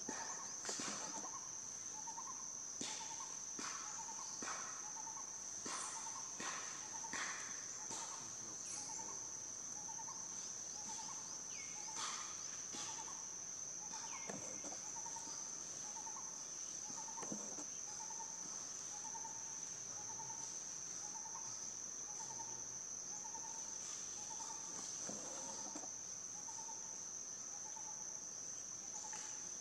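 Insects droning steadily at a high pitch, with a short call repeating about once a second beneath it. Scattered clicks and rustles come in the first half.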